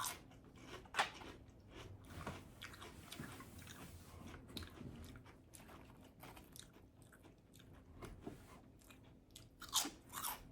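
A person biting into and chewing a toasted tuna melt sandwich close to the microphone: crisp crunching bites about a second in and again near the end, with softer chewing in between.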